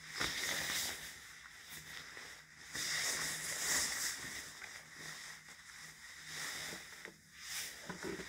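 Fabric rustling close to a phone microphone: a jacket being shifted and pulled about, in several hissy bursts, the longest a little over a second long, over a faint steady room hum.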